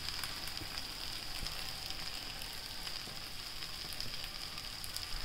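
Thick chicken bhuna masala sizzling gently in a kadai on the heat, a steady soft hiss with scattered faint crackles.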